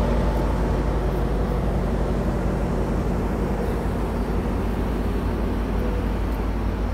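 Amtrak Capital Corridor train standing at the platform, its F59PHI diesel locomotive idling with a steady low drone.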